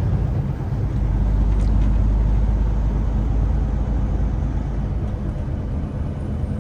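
Semi truck's diesel engine and road noise inside the cab while driving, a steady low rumble that eases slightly about five seconds in.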